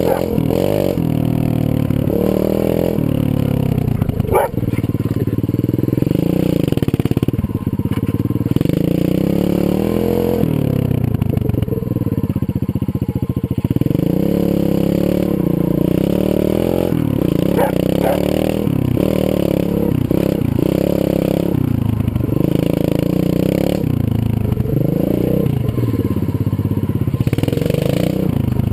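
Zongshen 125cc pit bike's single-cylinder four-stroke engine being ridden, revving up and down repeatedly as the throttle is opened and closed.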